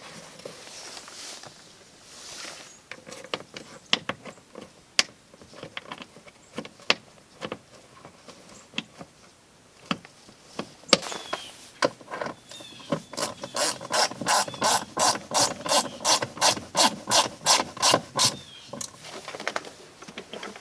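Hand socket ratchet clicking in an even run of quick strokes, about four a second, for several seconds while a fastener is driven in. Before that, scattered clicks and knocks of parts and tools being handled.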